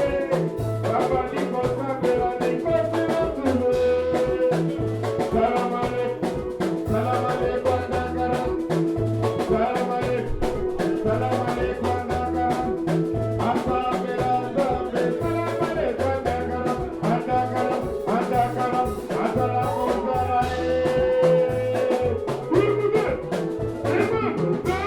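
Upbeat dance music with a steady drum and bass beat and singing.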